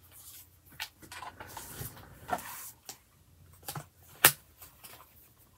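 Paper rustling and light knocks as sheets of craft paper are handled and moved across a desk and cutting mat, with one sharp click about four seconds in.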